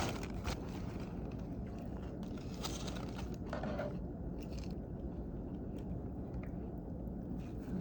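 Steady low rumble of a car interior with irregular close crunching and rustling clicks, thicker in the first half.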